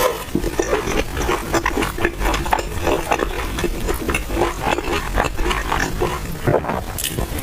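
Close-miked chewing of crispy oil-skin buns: a continuous run of wet smacking and small crackling crunches from the mouth.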